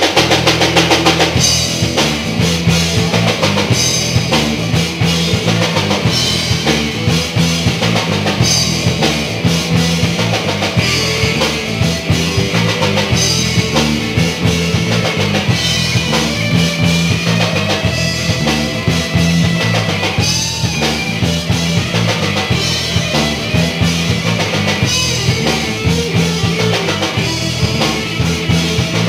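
Live rock band playing an instrumental stretch: a drum kit keeping a steady beat under a played electric guitar.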